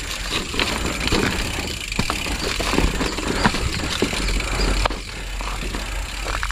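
Mountain bike moving slowly over loose rocks, its tyres crunching on stones while the bike rattles with irregular knocks and clicks, over a steady low rumble.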